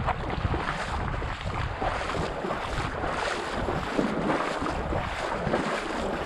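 A person wading through shallow marsh water and emergent vegetation: continuous sloshing and swishing of legs pushing through water and stems, with wind rumbling on the microphone.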